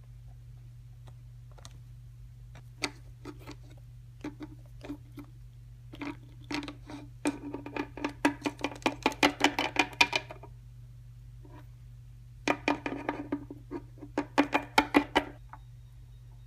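Small plastic toy figures tapped and hopped against a wooden tabletop. A few scattered taps come first, then two quick runs of clicking taps, like little footsteps.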